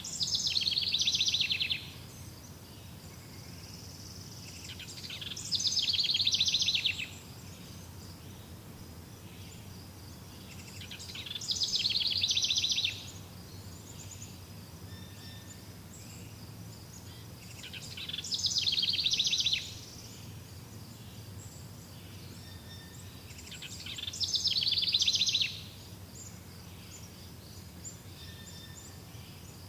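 A rapid, buzzy, high-pitched animal trill repeats five times, about every six seconds. Each trill lasts about a second and a half, swells and then cuts off sharply. Under it runs a faint steady background with a low hum.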